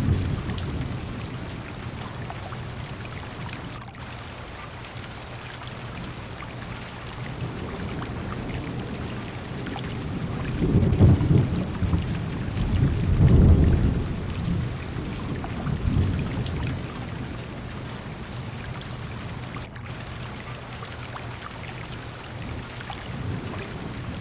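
Heavy rain falling steadily on a car window, with thunder rumbling low from about ten to fourteen seconds in and once more a couple of seconds later.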